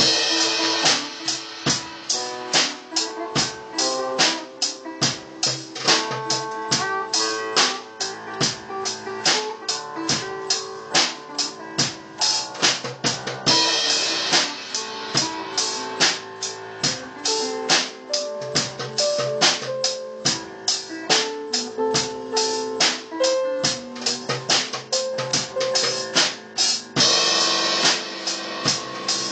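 Live band jamming: a drum kit keeps a laid-back beat under electric guitar and piano. Cymbal crashes come near the start, about halfway through, and near the end.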